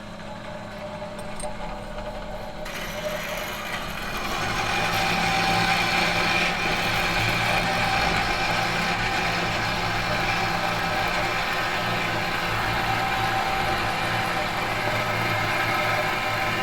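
Metal workshop machine humming with several steady low tones. About three seconds in a harsher, noisier whir joins in, and the sound grows louder until it settles into a steady running hum.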